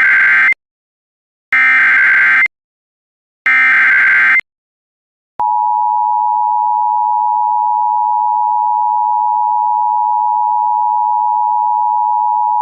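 Emergency Alert System alert tones: three bursts of the SAME header's warbling data tones, each about a second long and a second apart. About five seconds in, the steady two-tone EAS attention signal begins, the signal that announces an emergency message is about to be read.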